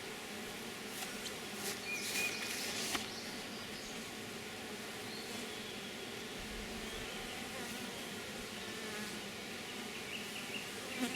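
Steady buzzing hum of a colony of honey bees in an open hive, with a few brief clicks about one to three seconds in. The bees are calm and unbothered.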